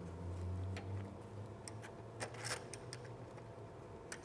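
Scattered light metallic clicks and taps as a stainless steel tube is seated in steel V-blocks on a welding table and a wooden-handled clamp is tightened onto it.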